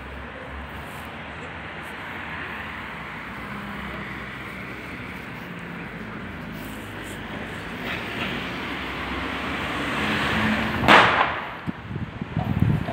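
Steady hiss of street traffic that swells gradually, then a single sharp, loud burst about eleven seconds in, followed by a few softer knocks.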